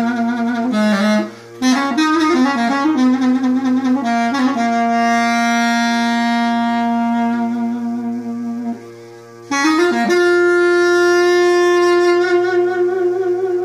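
Solo reed wind instrument playing a slow, ornamented melody of long held notes, over a faint steady low drone. The melody breaks off briefly about a second in and again around nine seconds.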